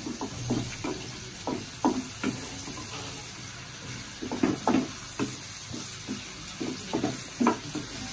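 Chopped onions sizzling in hot oil in a pan, stirred with a spatula that scrapes and taps against the pan about a dozen times at uneven intervals.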